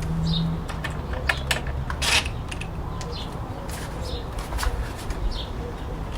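Scattered light clicks and taps of hand work on plastic body panels and screws, with a low steady hum near the start and occasional faint bird chirps.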